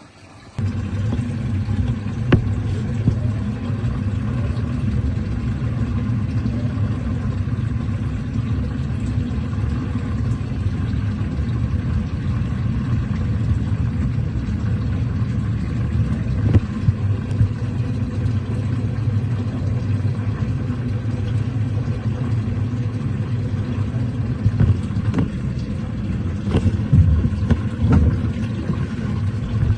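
Automatic washing machine starting up and running its wash cycle: a loud, steady low rumble that comes on suddenly about half a second in.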